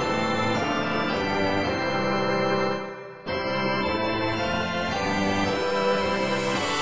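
Background music of held keyboard chords, organ-like, dipping briefly about three seconds in and coming straight back in.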